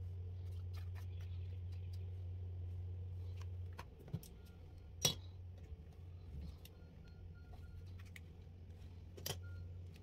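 Small clicks and taps of makeup pots and brushes being handled, with a sharp click about five seconds in and another near the end. A steady low hum sits underneath and drops away about four seconds in.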